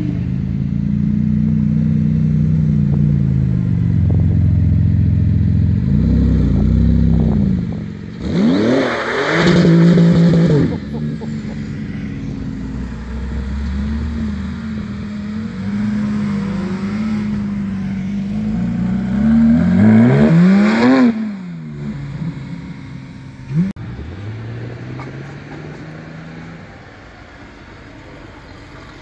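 Porsche 911 sports cars, among them a GT2 RS, a GT3 and a classic 930 Turbo, driving past one after another, their engines revving up and down as they accelerate by. The two loudest moments are hard accelerations about 9 and 20 seconds in, with one sharp click a few seconds after the second; the engine sound fades near the end.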